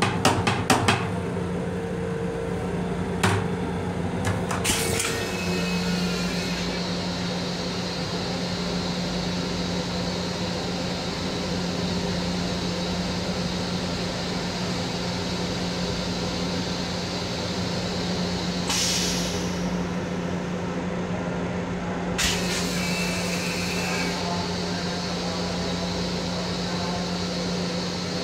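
Steady hum and whine of an MTA Long Island Rail Road M7 railcar's equipment and ventilation, heard inside its small restroom. In the first five seconds there are several sharp clicks and knocks as the plastic toilet lid is handled. Two short hisses of air come about 19 and 22 seconds in.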